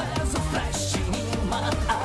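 Background music with a steady beat and a bass line, possibly with singing.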